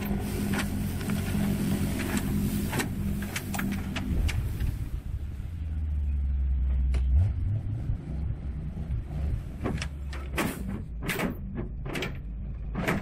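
Dump truck's engine running while a load of wood chips slides and pours out of its tipped bed. The engine drone drops deeper and louder for a few seconds in the middle, and a run of sharp knocks comes near the end.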